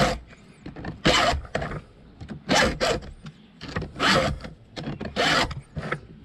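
Hand file in a Stihl file guide rasping across the teeth of a chainsaw chain, in short strokes: about eight or nine, falling roughly in pairs, while the chain is sharpened.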